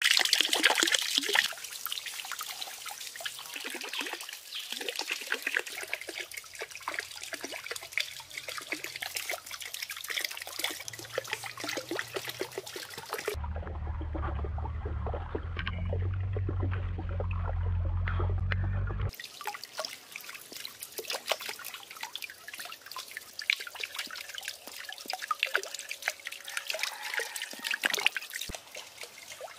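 Water trickling and splashing as it pours from a bamboo pipe onto the cups of a small water wheel and into a pond. In the middle, about six seconds of muffled, deep underwater sound.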